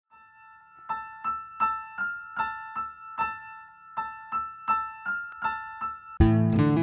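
Background intro music. A repeated keyboard figure of struck notes, about three a second, plays until a much louder full band comes in about six seconds in.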